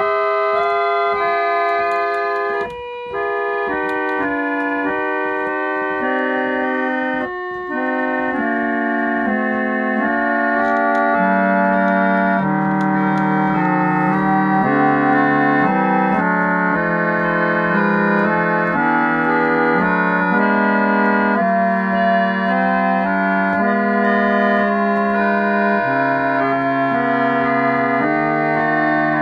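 1895 Bilhorn telescope organ, a foot-pumped reed organ, playing sustained chords that change every second or so, with the sound breaking off briefly twice in the first eight seconds.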